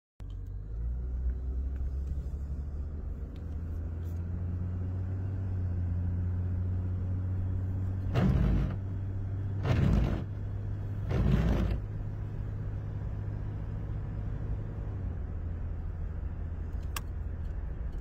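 Car engine running and road noise heard from inside the cabin while driving, a steady low hum. About halfway through come three brief louder rushes of noise roughly a second and a half apart, and a single sharp click near the end.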